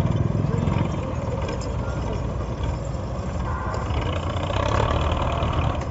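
Diesel engines of MTZ Belarus tractors running steadily under load as they try to pull a stuck, loaded sugarcane trolley, with people's voices mixed in during the second half.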